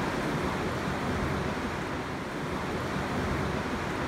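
Steady rushing noise of ocean surf and wind along a rocky coral shore.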